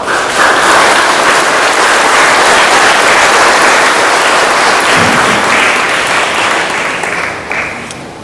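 Congregation applauding, a dense steady clapping that sets in at once and fades away near the end.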